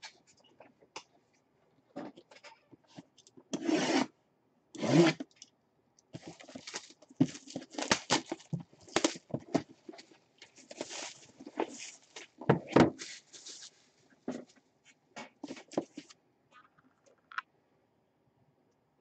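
Cardboard box being handled and opened by hand: irregular rubbing and scraping of cardboard, with a few sharp knocks and scuffs.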